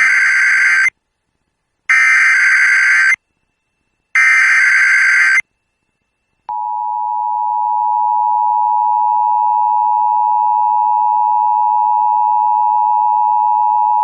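Emergency Alert System SAME header: three bursts of harsh digital data screech, about a second each with short gaps between. About a second later comes the long, steady EAS attention tone, announcing a winter storm warning that is about to be read.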